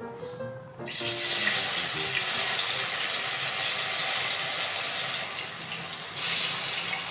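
Food sizzling in a hot wok, a steady hiss that starts about a second in, with the last notes of light music fading under it at first.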